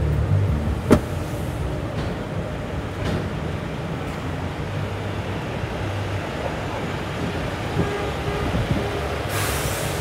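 Steady low rumble of semi-truck diesel engines running at a truck-stop fuel island, with a sharp click about a second in and a brief rush of noise near the end.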